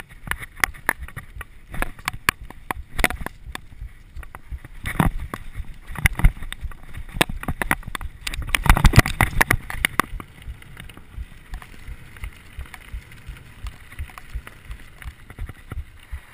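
Mountain bike ridden fast over rough forest singletrack: frame, chain and suspension rattling with rapid sharp knocks as the tyres hit roots and bumps, heaviest about nine seconds in. After about ten seconds the knocks thin out into a steadier tyre rumble on smoother gravel.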